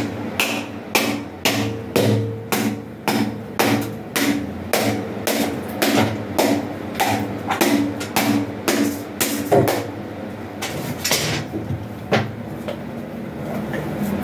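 Machete striking a dry coconut held in the hand, a steady run of sharp knocks about two a second that thins out near the end, cracking the shell open.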